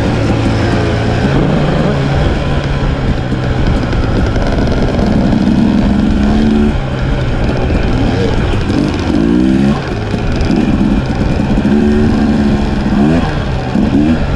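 Dirt bike engine running hard on a sandy trail, its pitch climbing and dropping again and again as the rider opens the throttle and shifts through the gears.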